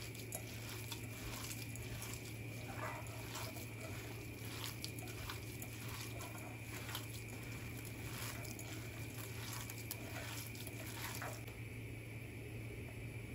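A moist raw filling of ground beef and rice being mixed in a bowl: a run of short, wet squelches about two a second, which stop about two seconds before the end.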